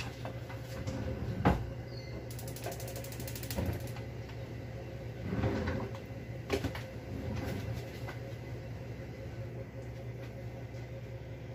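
Kitchen handling sounds over a steady low hum: a sharp knock, a rapid buzzy rattle lasting about a second and a half, then plastic bag crinkling and another knock about halfway through.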